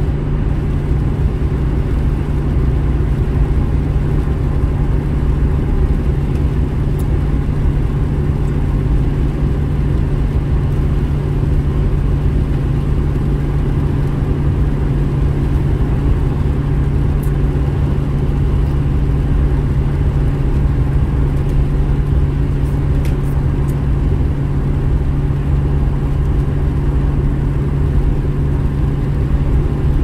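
Steady drive noise inside a moving car's cabin: engine and tyres running on a wet road, with a constant low hum and no change in pace.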